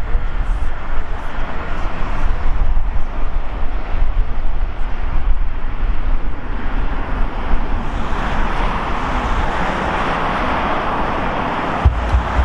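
Steady vehicle roar that swells from about eight seconds in, with wind gusting on the microphone.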